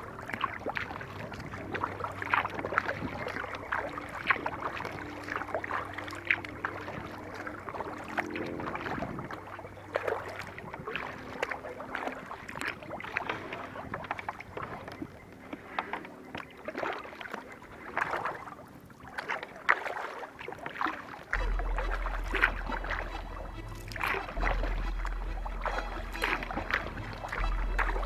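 Kayak paddle strokes: irregular splashes and drips of water from the paddle blades on calm water. From about three-quarters of the way through, a deep low hum runs underneath.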